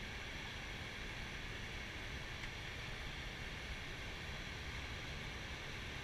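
Steady in-flight cockpit noise of an Airbus A320 flight deck: an even rush of air and ventilation noise over a low rumble, unchanging throughout.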